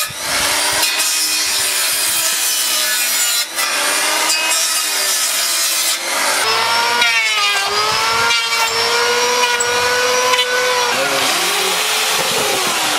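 Handheld circular saw cutting through a wooden board, its motor whine wavering and dipping as the blade bites into the wood. Near the end the tool's pitch falls away as it winds down.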